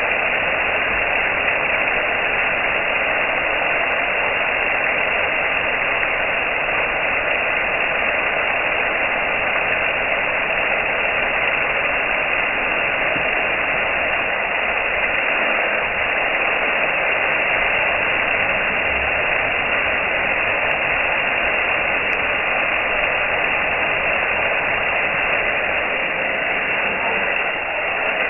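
Steady, even hiss with no breaks or distinct events.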